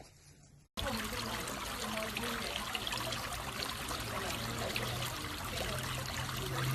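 Running, trickling water, starting abruptly under a second in, with a steady low hum beneath it.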